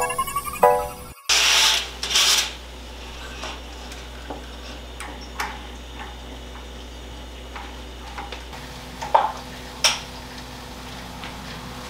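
Soft music ends about a second in, then quiet household handling sounds: a short rustling rattle, then scattered light clicks and taps over a low steady hum, with two sharper clicks near the end.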